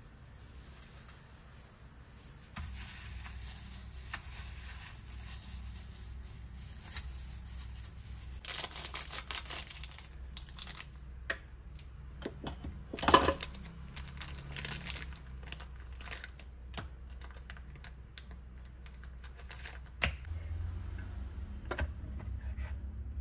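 Kitchen handling sounds: scattered clicks and knocks, plastic packaging crinkling, and a loud sharp click a little after halfway. Near the end, a knife slices wonton wrappers on a wooden cutting board.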